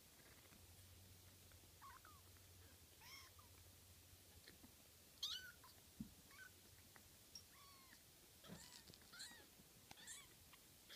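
Very young kittens mewing: about a dozen short, thin, high-pitched mews, scattered and sometimes close together, the loudest a little past five seconds in.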